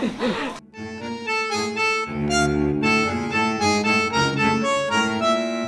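Background music: a melody of held notes over a bass line, cutting in suddenly about half a second in as a voice breaks off.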